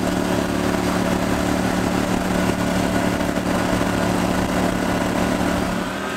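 Motor of a flat-bottom boat running at a steady speed, its pitch holding constant; the engine note drops away just before the end.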